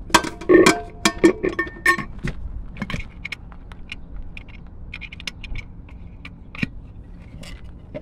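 Metal air cleaner lid clanking and scraping as it is set down on the filter housing, with ringing metallic knocks in the first two seconds or so. After that come lighter, scattered clicks as the wing nut on top is turned down.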